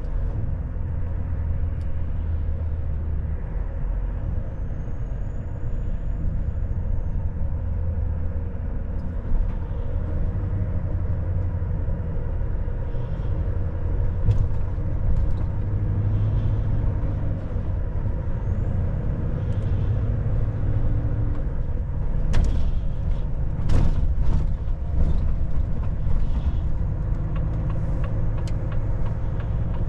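Semi-truck heard from inside its cab while driving: a steady low engine and road drone. A few short, sharp knocks or clicks come about two-thirds of the way through.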